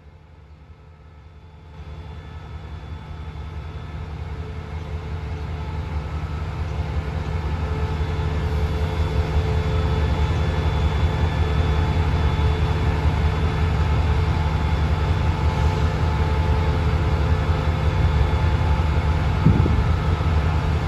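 Diesel engine of an SRT QSY-class diesel-electric locomotive running. It steps up suddenly about two seconds in and then grows steadily louder, with a steady whine above its low note. A short knock comes near the end.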